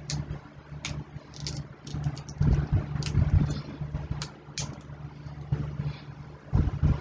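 Close-up eating sounds: crab shells being picked apart with short clicks and crackles, with chewing and lip smacking, over a steady low hum.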